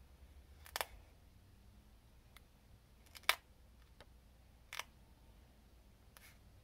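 Foam pieces coated with dried contact cement being handled and pressed together by hand: three faint sharp clicks, the loudest about halfway through, with a few fainter ticks between, over a low steady hum.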